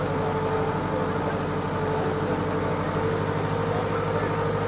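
Farm tractor engine running at a steady speed while towing a wagon, an even drone.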